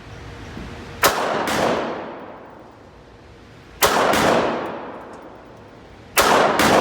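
Pistol shots at a shooting range: one about a second in and another half a second later, one near four seconds, and two close together near the end. Each sharp crack trails off in a long echo.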